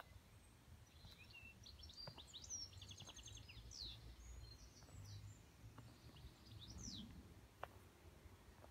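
Faint birdsong: a small bird's rapid trills and quick sweeping chirps, from about a second in until about a second from the end, over a low rumble.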